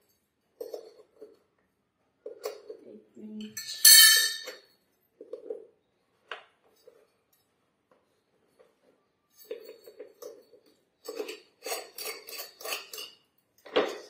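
Hollow metal handle rods of a manual push sweeper clinking and scraping as they are fitted together and pushed into the plastic sweeper body. The sounds come in scattered bursts, with one loud ringing clank about four seconds in and a dense run of clatter near the end.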